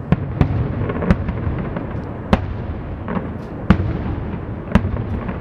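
Aerial fireworks shells bursting about a kilometre away: a string of sharp bangs, about six loud ones at uneven intervals, with smaller pops and a continuous low rumble between them.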